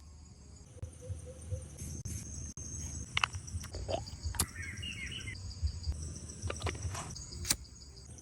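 Insects chirping in a steady, high, finely pulsing chorus, with scattered sharp clicks and knocks over a low rumble.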